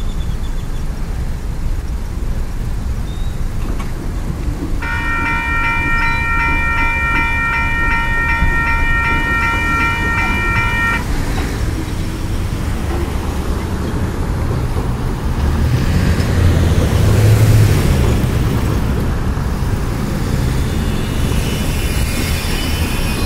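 A train horn sounds one steady blast of several notes for about six seconds, starting about five seconds in, over the rumble of road traffic. A vehicle passes, loudest about two-thirds of the way through.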